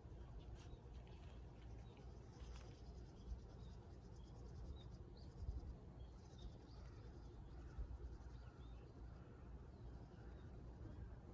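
Quiet outdoor garden ambience: faint, scattered bird chirps and short spells of fast insect-like ticking over a low steady rumble.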